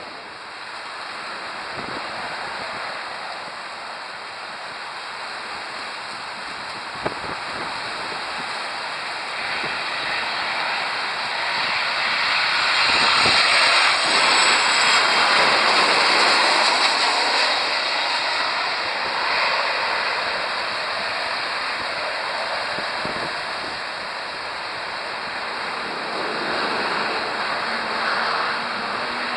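Boeing 737 jet airliner in Southwest Airlines colours flying low overhead on final approach: its engine noise swells to a peak about halfway through, with a high whine that falls in pitch as it passes, then eases off.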